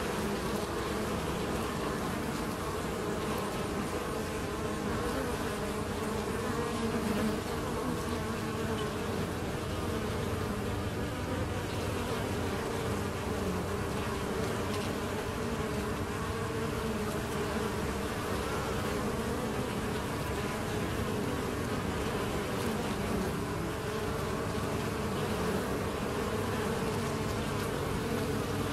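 Many honeybees buzzing as they fly in and out of a hive entrance: a steady, dense hum of many overlapping wingbeat tones drifting up and down in pitch, the sound of busy foraging traffic.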